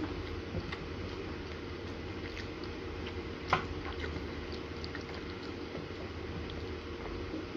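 Steady low background hum with a few faint light clicks, and one sharp tap about three and a half seconds in.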